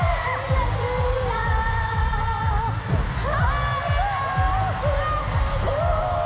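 Pop song playing: women's voices singing a gliding melody over a steady, heavy bass beat.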